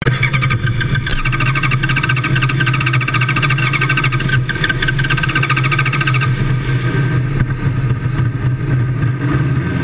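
Race car engine idling, loud and steady, with a rapid higher pulsing over it that fades out about six seconds in.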